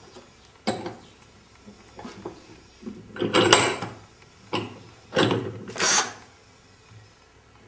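Wooden pieces and a cordless drill handled on a wooden workbench: a handful of separate knocks and scrapes, the loudest cluster a little past the middle.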